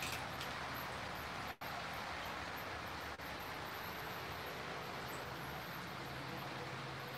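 HO scale model trains running on the layout track: a steady rolling hum of wheels and motors with faint high-pitched squeaks. The sound drops out briefly about one and a half seconds in.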